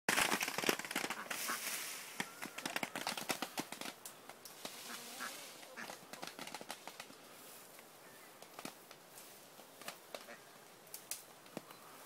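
Mulberry tree branches creaking and leaves rustling as a man climbs through it, with many sharp clicks and cracks, dense and loud at first, thinning out and fading after about four seconds.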